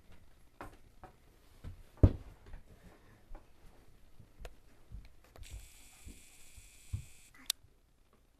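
Scattered soft knocks and thumps from a toddler handling toys and a plush rocking horse, with one louder thump about two seconds in. Near the end, a steady high whirring hiss for about two seconds, cut off by a sharp click.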